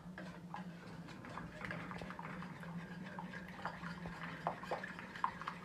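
A metal spoon stirring thin molokhia soup in an enamel pot, with light scattered clinks and liquid sloshing over a low steady hum.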